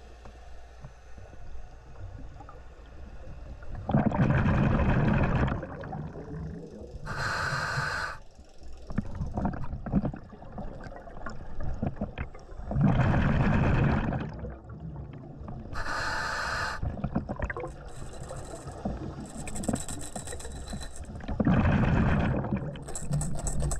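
A scuba diver breathing through a regulator underwater: three full breaths, each a short hiss of the demand valve on the inhale followed a few seconds later by a rumbling, crackling rush of exhaled bubbles.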